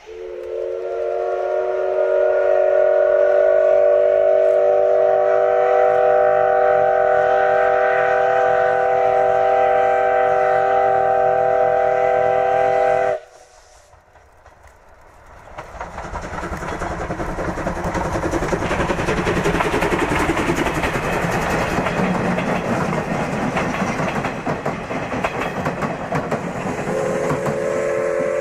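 Whistle of steam locomotive C12 66 blown in one long blast of several tones at once, lasting about thirteen seconds and cutting off sharply. After a short lull the train is heard running, growing louder, with fast regular beats, and the whistle sounds again near the end.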